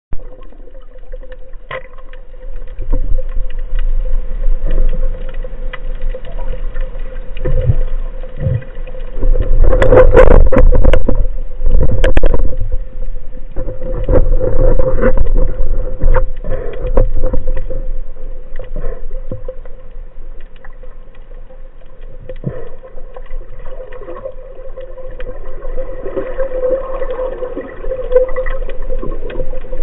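Underwater noise picked up by a speargun-mounted camera: a low rumble of water with a steady hum and scattered clicks, growing loudest for a few seconds near the middle.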